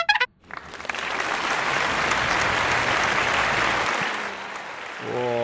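Applause that swells in just after a brass fanfare cuts off, holds for about three seconds and fades, greeting the reveal of the baked damper. Near the end a man's drawn-out, wavering voice starts.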